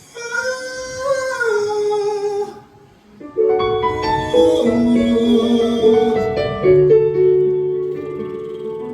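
Opening of a song's instrumental intro over a concert sound system. A short pitched phrase slides downward, then piano or keyboard chords come in about three seconds in and hold.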